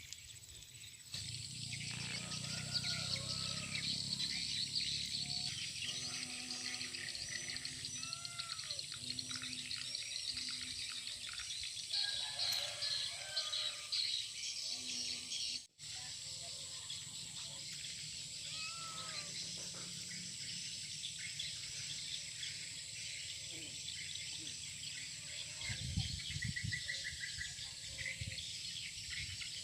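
Many wild birds chirping and calling over a steady high hiss of outdoor ambience, with a brief dropout about halfway through.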